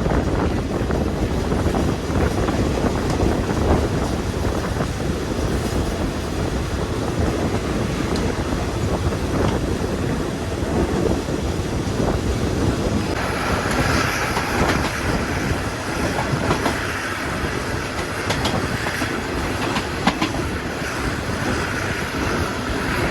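Passenger train running along the track with a steady rumble and wheels clicking over the rail joints. About halfway through, a higher hissing whine joins in.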